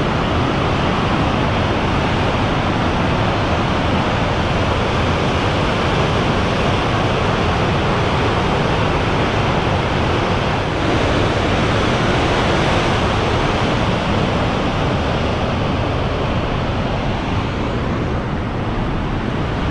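Steady rushing of a high-pressure water jet released from the dam's low-level regular flood outlet, crashing into the concrete stilling basin during an inspection discharge.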